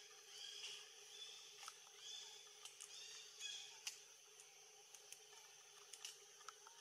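Faint short high-pitched animal calls, repeating several times in the first half, over a steady high background hum, with a few soft clicks.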